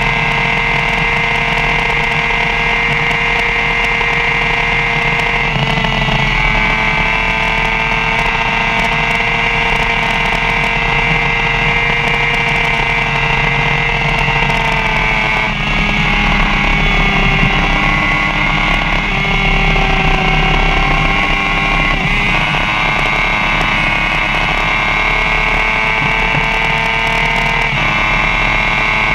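2015 BMW S1000RR inline-four sport bike engine held at high revs in sixth gear near top speed, about 180+ mph. The pitch stays steady apart from a few slight dips and recoveries.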